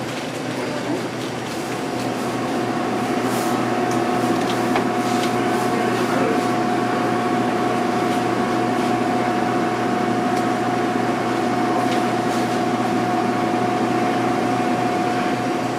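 Steady machine hum with a single high whining tone that starts about a second and a half in, with light scattered clicks over it.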